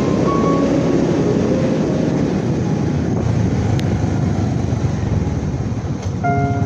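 Motorcycle riding along a road: a steady rumble of engine and wind noise. Background music is faint at first and comes back near the end.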